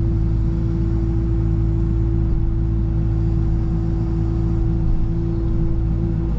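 Excavator running steadily while working a pile, a constant low hum with a steady pitched whine over it.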